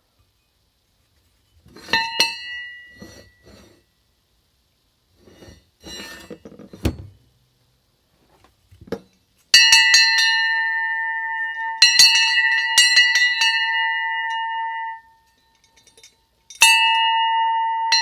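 Antique cast bronze mission church tower bell struck several times, each strike ringing with a clear, bright tone. A short, quickly damped strike comes about two seconds in, followed by a few knocks. About halfway a loud strike and a second one ring on for several seconds, then stop abruptly, and the bell is struck again near the end.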